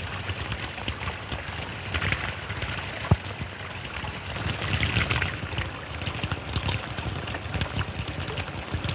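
Water splashing as two men drink from open water, over the hiss of an old film soundtrack, with one sharp click about three seconds in.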